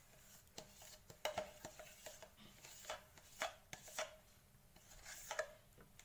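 Steel spoon scraping and tapping inside a plastic curd tub as the last of the thick curd is scraped out: a series of short, irregular scrapes and taps, faint overall.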